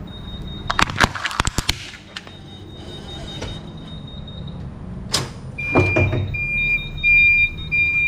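Forklift tyre crushing a hollow plastic toy duck: a quick run of sharp cracks and snaps about a second in, then more cracks around five to six seconds as the shards are run over, over the low running of the forklift. From about halfway a high electronic warning beeper sounds in repeated beeps.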